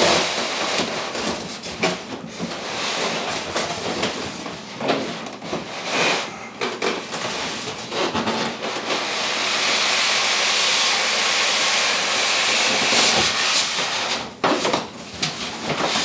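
Styrofoam packing block being slid out of a cardboard box: foam rubbing and squeaking against cardboard, with scattered knocks in the first half and a long, steady scrape a little past halfway as the block comes free.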